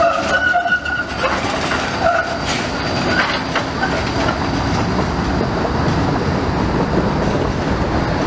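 Trams running through a street junction: steel wheels squeal in a high steady tone on the curved track during the first second and again briefly around two seconds in, then click several times over the points and crossings. A steady rolling rumble runs underneath.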